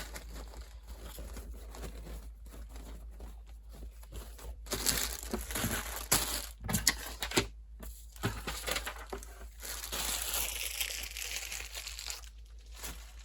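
Packaging being handled: rustling and crackling, faint at first, then louder stretches from about five to eight seconds in and again around ten to twelve seconds, with a few sharp crackles.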